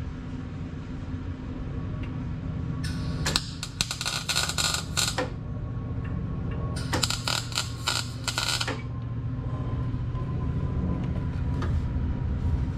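MIG welder striking two short tack welds, each a crackling arc lasting about two seconds, the second starting about seven seconds in, fixing a steel coil spring pad lightly onto the axle tube.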